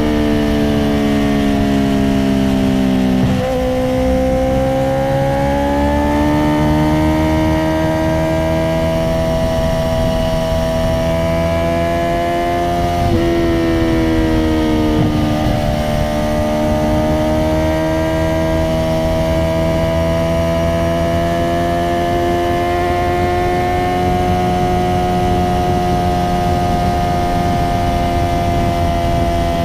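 Honda CBR650R inline-four running through an Akrapovic titanium exhaust with no dB killer, heard from the moving bike. The engine note falls over the first three seconds, then holds at a fairly steady cruising pitch that creeps slowly upward, with brief breaks in pitch about three seconds in and again around thirteen and fifteen seconds.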